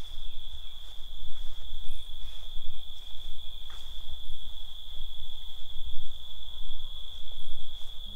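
Crickets chirping in a steady, high-pitched night chorus, with an uneven low rumble underneath.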